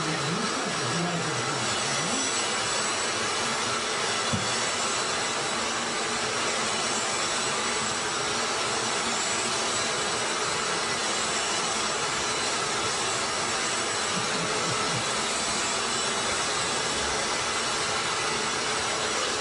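Vacuum cleaner running steadily, its nozzle drawn over a cat's fur as the cat is vacuumed.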